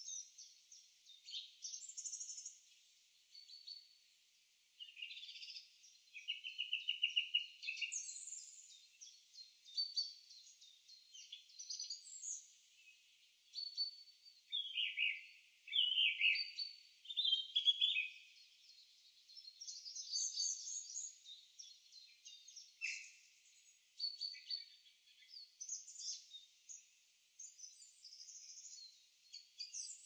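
Several songbirds singing and calling over one another: a busy mix of chirps, whistles and trills, including a rapid trill about seven seconds in and a run of loud falling chirps about halfway through. Only the high range is heard, with nothing low beneath it.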